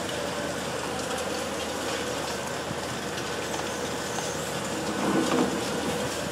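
High-reach demolition excavator working its crusher jaws into a concrete building: a steady machine noise with scattered clattering and crunching of breaking concrete and falling debris, louder about five seconds in.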